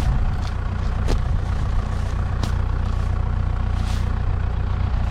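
Tractor engine idling steadily, with a few sharp clicks over it.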